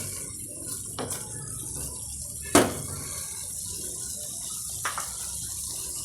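Chicken gizzard stew in thickened tomato paste sizzling steadily in the pot, with a few light clicks and one sharp knock about two and a half seconds in.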